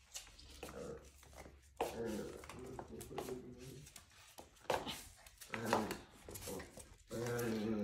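An Alaskan Klee Kai puppy growling in play in short low bouts while biting at a person's slippers, with light taps and clicks of feet and paws on a hard floor.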